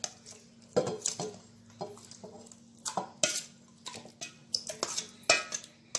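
A steel spoon scraping and knocking against a steel bowl as marinated chicken is tipped out into a non-stick pot, in a run of irregular clinks and scrapes over a faint steady hum.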